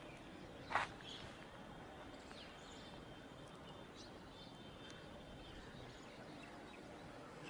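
Open-air ambience with birds chirping faintly, and one short, sharp, loud sound about a second in.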